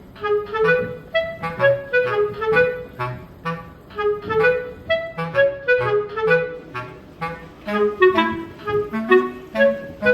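Background music: a light melody of short pitched notes over a steady rhythm.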